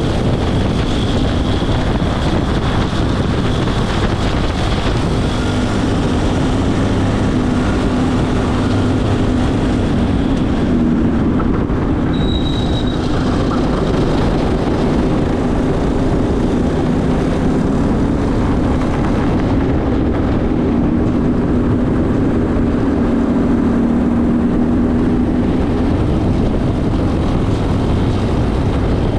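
Racing go-kart engine running hard, its pitch rising and falling as the driver works through the laps, over heavy wind rush on the onboard microphone.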